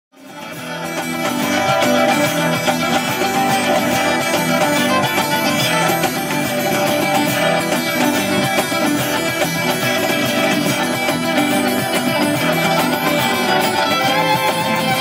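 Music that fades in over the first two seconds and then plays on at a steady level.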